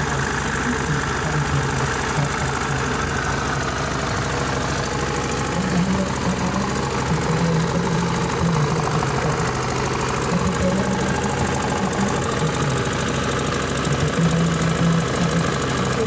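Diesel engine running steadily with its rapid, even diesel knock, fitted with a silencer that quiets it to sound like a factory-quiet unit.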